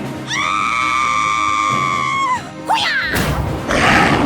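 Background music with a long held high note for about two seconds, then a short falling glide and a loud noisy crash about three seconds in.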